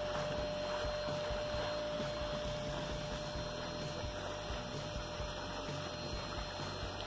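Steady hum of a vacuum cleaner motor used as a homemade pond aerator blower, its impeller forcing air down a PVC pipe so the pond water bubbles and churns at the outlet.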